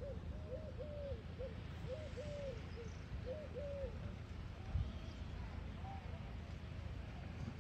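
A bird cooing: a series of short low notes, often in pairs, that stops about four seconds in, over a low steady rumble, with a single soft thump a second later.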